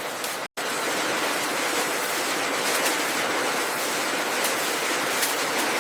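Steady machine noise of a bottle packaging line, a dense hiss with faint scattered clicks, cutting out for an instant about half a second in.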